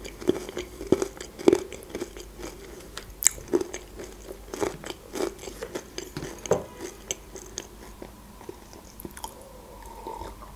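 Close-miked chewing of cake: irregular wet mouth clicks and smacks. Near the end it quietens and she takes a drink from a mug.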